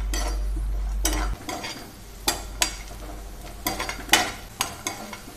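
A spatula stirring cashews and raisins frying in ghee in a non-stick frying pan: a light sizzle with several scrapes and taps of the spatula against the pan. A steady low hum stops about a second in.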